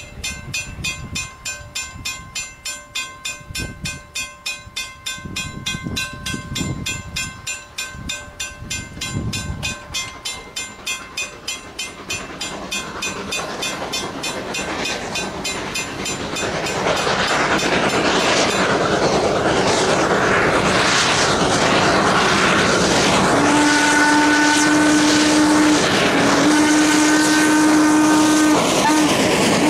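Norfolk & Western J-class 611 steam locomotive approaching a grade crossing. A bell rings steadily about twice a second at first. The locomotive's running noise then grows louder, and its steam whistle sounds two long blasts and begins a third near the end.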